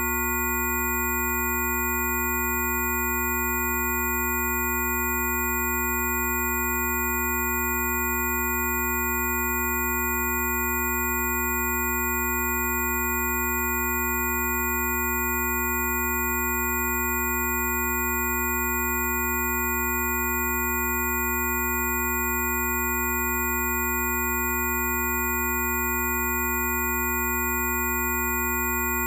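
Several steady pure sine tones sounding together, one low hum and a set of higher pitches up into a high whine, all held unchanged: a layered Rife-frequency tone track.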